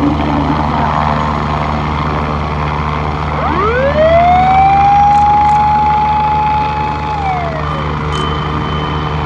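Fire engine siren winding up about three and a half seconds in, holding one steady wail for a few seconds, then winding down, and starting to rise again at the end. Underneath runs a steady low engine drone.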